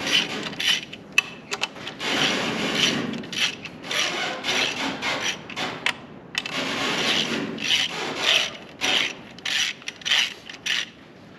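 Hand ratchet wrench worked on transmission bolts in repeated strokes with short pauses between them, stopping just before the end.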